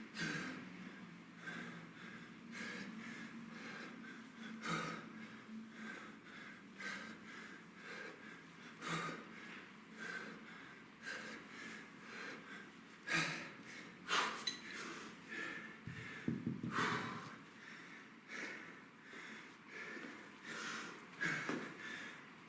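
A man breathing hard under exertion, with short forceful exhales repeating about once a second and a few louder ones in the middle, while working a kettlebell set.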